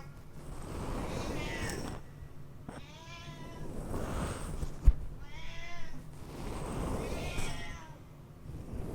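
A cat meows a few times against a simulated wind sound that swells and fades in whooshes, about three of them. A single sharp click comes about five seconds in.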